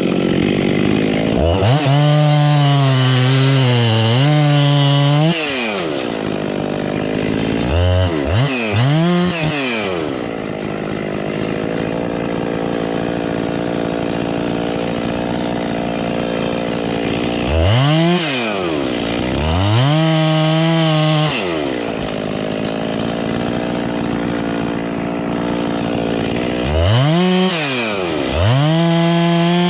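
Husqvarna two-stroke chainsaw revving to full throttle for long stretches, about two to four seconds each, and dropping back to a steady idle in between, with a few quick blips of the throttle. This is the saw bucking a blown-down tree into firewood.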